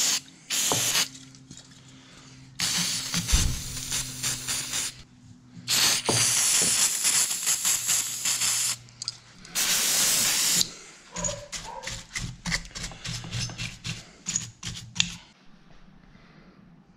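An aerosol cleaner can spraying onto a small two-stroke engine in several long bursts of spray. From about eleven seconds in comes a run of quick scrubbing strokes from a stiff bristle brush.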